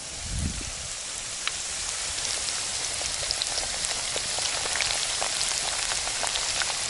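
Potatoes frying in hot oil in a sadzh pan over a campfire: a dense sizzle that builds over the first couple of seconds and then holds steady, with many sharp spitting crackles of oil.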